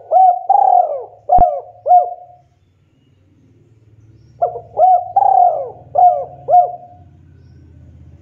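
Spotted dove (tekukur) cooing: two song phrases of several quick arched coos each, about four seconds apart. A single sharp click cuts through the first phrase.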